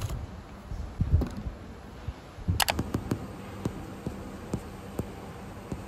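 Scattered light clicks and taps of objects handled on a study table, with a low thump about a second in and a sharper click about two and a half seconds in.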